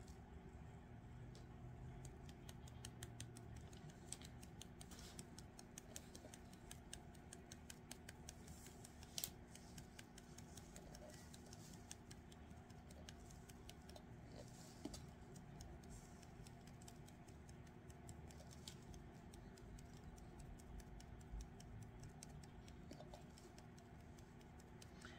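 Faint, quick light ticking as a plastic glitter tray is tapped to shake fine glitter onto a tumbler, with one louder click about nine seconds in, over a low steady hum.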